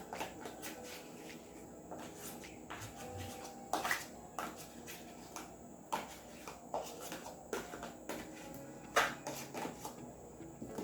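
A kitchen utensil clicking, knocking and scraping irregularly against a container, with the sharpest knocks about 4 and 9 seconds in, as margarine is scooped into a mixing bowl of biscuit dough. Faint background music underneath.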